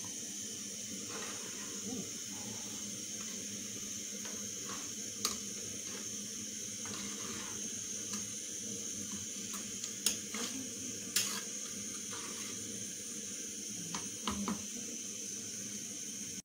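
Pot of jollof rice simmering with a steady hiss, with a few sharp clicks of a spoon against the aluminium pot.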